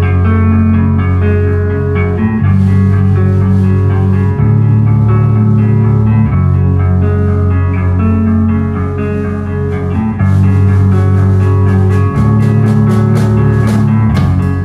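Live rock band playing loud, with bass and guitar holding heavy notes that change every two seconds or so over drums. Cymbal strikes come in fast for the last few seconds.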